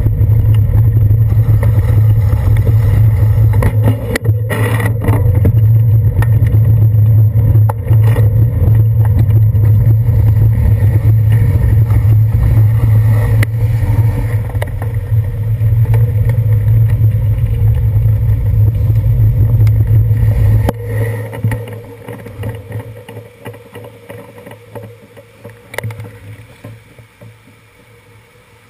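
Steady low rumble of road vibration and wind through a handlebar-mounted camera as a bicycle rides over wet city pavement. About two-thirds of the way through it drops away sharply, leaving quieter street traffic.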